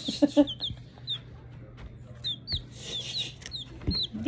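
Baby chick peeping: a string of short, high, falling peeps, about two a second.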